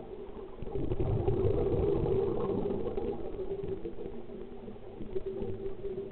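Scuba breathing heard underwater: a regulator exhalation, with a gurgling rush of bubbles that swells about a second in and fades over the next two seconds, over a steady low hum.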